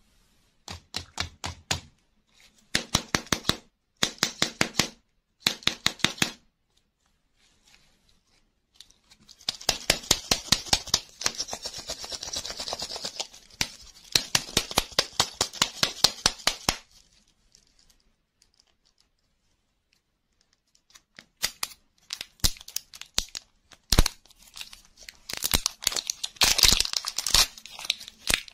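Fingers working over foil-wrapped plastic toy-lollipop balls: three short bursts of rapid fingernail tapping, then a longer stretch of fast scratching as a ball is turned in the hand. Over the last several seconds the foil wrapper is picked at and peeled off the plastic, crinkling and tearing.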